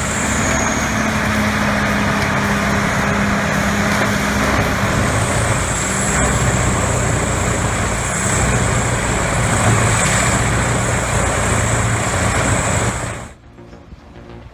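Large diesel wood chipper running under load, a steady heavy engine hum mixed with the noise of material going through and a high whine above it; the sound cuts off abruptly about a second before the end.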